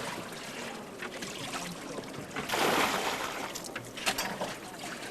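River water trickling and lapping around a rafting boat, with a louder rush of noise about two and a half seconds in and a few sharp knocks near four seconds.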